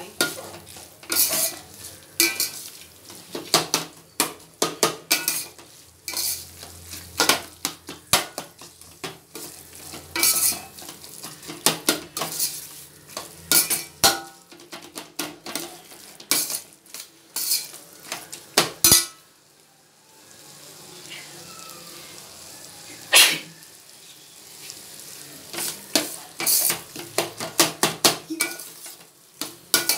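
A metal spoon stirs and scrapes onion-tomato masala frying in a stainless steel pot, with frequent irregular clinks against the pot over a steady sizzle. About twenty seconds in there is a brief pause. After it the strokes come more sparsely, with one sharp clank.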